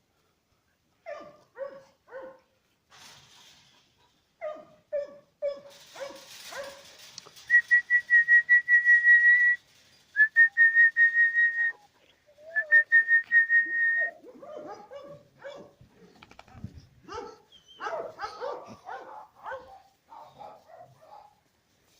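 Dogs barking in short yips, then three runs of about two seconds each of a loud, high, whistle-like tone pulsing several times a second, then more dog barking and whining.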